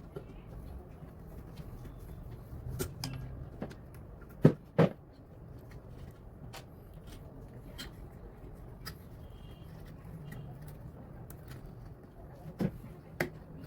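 Scattered clicks and knocks of tools and parts being handled during work on an instant water heater, with two sharp knocks close together about four and a half seconds in and two more near the end, over a steady low background rumble.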